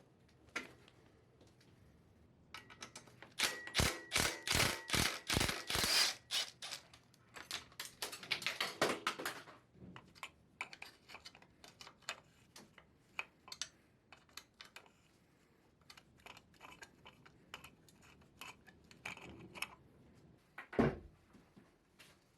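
Hand tools and metal bicycle parts clicking and knocking during work on the bike. A quick run of sharp knocks, one with a brief metallic ring, comes about four to six seconds in, followed by scattered lighter clicks and a single heavier knock near the end.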